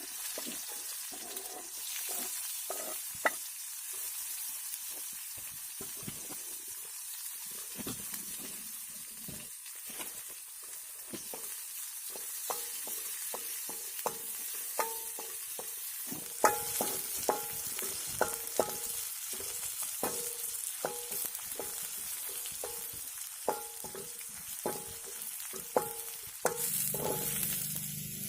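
Food frying in a pan with a steady sizzling hiss while a utensil stirs it, knocking against the pan with short ringing clicks that come more often in the second half.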